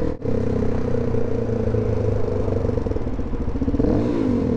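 Suzuki DR-Z400S single-cylinder four-stroke engine running while riding in traffic, heard close from the rider's position. Near the end the engine note rises briefly as it revs up and then falls back.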